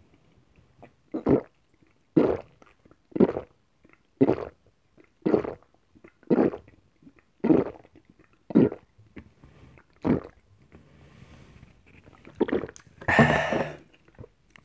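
Steady gulping as a carbonated orange soda is swallowed straight from the bottle, about one loud gulp a second, ten or so in a row. Near the end comes a longer, louder voiced release of breath.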